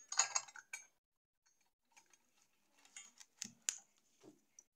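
Light clicks and taps from small parts and tools being handled in an opened car amplifier: a quick run of ticks at the start, then another cluster about three seconds in with a couple of duller knocks.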